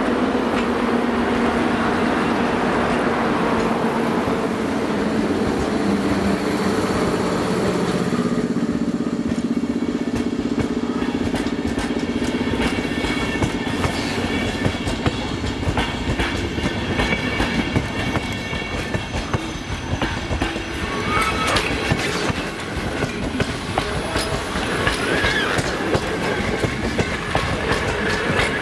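A pair of EU07 electric locomotives rolls past slowly with a steady electric hum. For the rest of the time their PKP Intercity passenger coaches follow, wheels clicking steadily over the rail joints.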